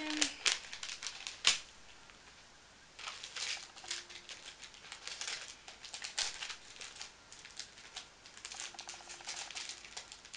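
Small clear plastic jewellery packet being handled and opened, crinkling and rustling in short irregular bursts, with a sharp click about a second and a half in. It is quieter for a moment, then the crinkling resumes.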